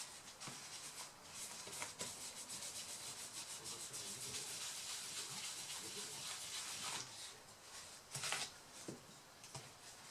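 A tissue rubbing quickly back and forth over a laptop's copper heatsink, wiping off the old thermal paste. A few light handling knocks near the end.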